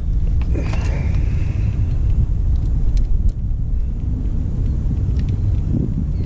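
Steady low rumble with a couple of sharp clicks about three seconds in, as pliers work on crimp wire connectors.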